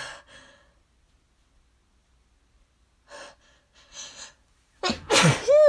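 A woman's allergy sneeze buildup: a drawn-out voiced gasp trails off, then after a pause two short breaths in, and near the end a loud sneeze with a voiced cry that falls steeply in pitch.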